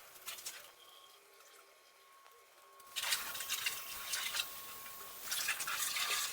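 Garden-hose foam gun spraying onto a car, starting about three seconds in as a loud, spattering hiss after a quiet stretch.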